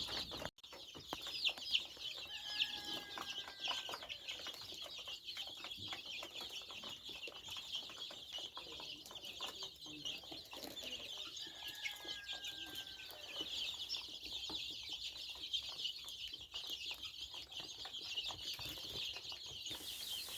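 A large flock of young chicks peeping continuously, many high-pitched chirps overlapping. Twice, about two and a half seconds and about twelve seconds in, a longer, lower call stands out above the chirping.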